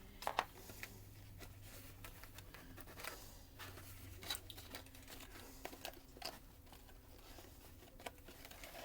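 Faint handling noises: scattered small clicks, taps and rustles as camcorder accessories and their packaging are handled, with two sharper clicks just after the start.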